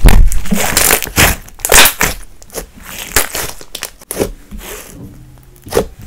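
Thick eyeshadow-and-glitter slime being kneaded, folded and stretched by hand, giving an irregular run of crackles, pops and squishes, loudest in the first two seconds.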